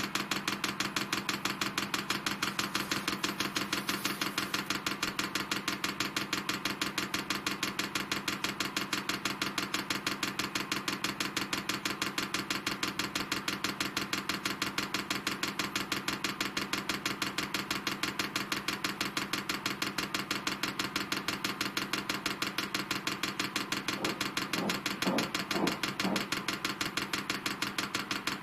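Fuel dosing pump of a Chinese 5 kW 12 V diesel air heater ticking rapidly and evenly as it primes the diesel line. A few brief louder sounds come near the end.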